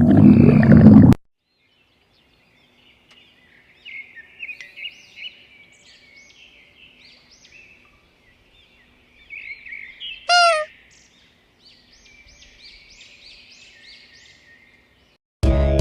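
A loud, low stomach-growl rumble cuts off abruptly about a second in. After a short silence, small birds chirp in quick rising-and-falling notes, with one louder call that falls in pitch about ten seconds in.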